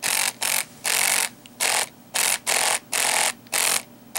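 The motion birthday card's built-in mechanism runs as the cut-out pug is worked back and forth. It makes a hissy buzz in short on-off bursts, about two a second.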